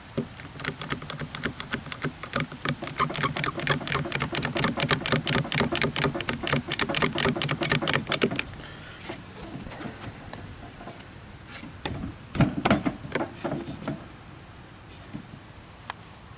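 Rapid ratcheting clicks, about five a second, for some eight seconds, then a few separate knocks.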